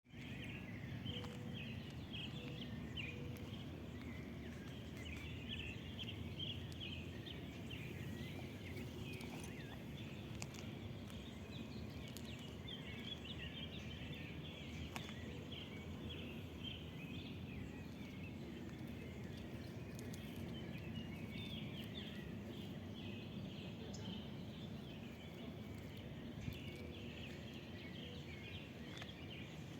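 Many small birds chirping and twittering without pause over a steady low background rumble, with a few faint clicks.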